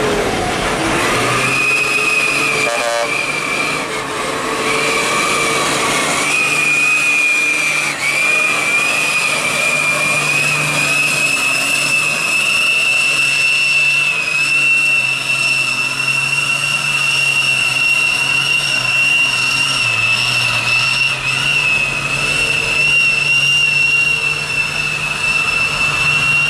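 Hino truck's diesel engine held at high revs under heavy load as the truck climbs a muddy slope. A steady, high-pitched screaming whine sits over the low engine note and creeps slightly higher in pitch as the climb goes on.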